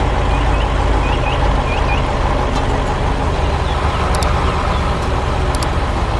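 Steady low rumble of a heavy truck engine, with a few short high chirps in pairs during the first two seconds.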